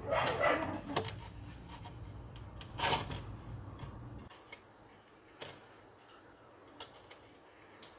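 Light clicks and taps of small chrome-plated metal tubes being handled and test-fitted into a chainsaw muffler. A low background hum cuts out about four seconds in.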